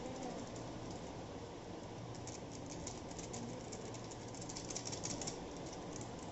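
A spatula scraping and clicking against a metal kadhai as noodles and masala are tossed and mixed: a run of quick, light, irregular clicks, busiest in the middle, over a steady hiss.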